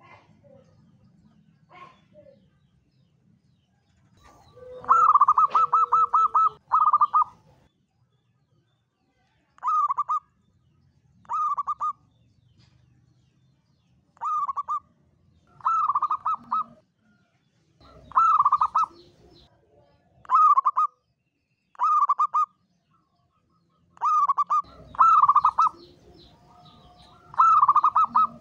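Zebra dove (perkutut) singing: short bursts of quick, rapidly repeated cooing notes. A long run comes about five seconds in, then a short phrase every second or two.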